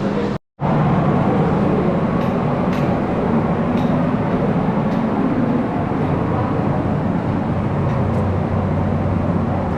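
Steady rumbling vehicle noise with a low hum, cut off briefly by a split-second gap near the start.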